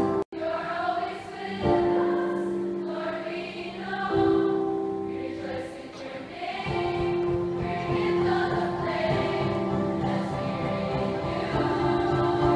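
Choir singing a slow song of praise in long held notes. The sound drops out for an instant just after the start.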